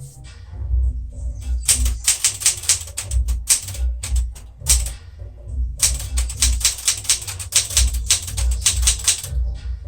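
1975 Smith-Corona Galaxie Twelve manual typewriter being typed on: type bars strike the platen in quick runs of sharp clacks, with a short pause a little after halfway.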